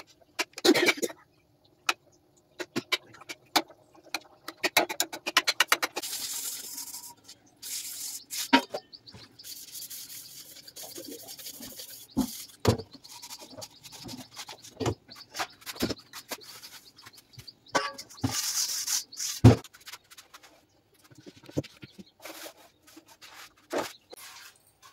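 Stainless steel utensils clinking and knocking, and a steel pot being scrubbed and rinsed at a sink, with two spells of hissing noise.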